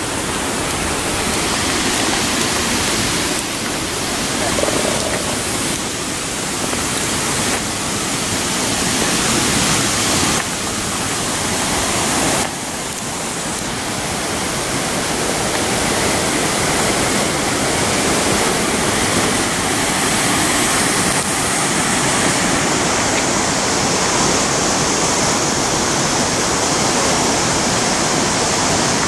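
Steady rushing hiss of flowing river water.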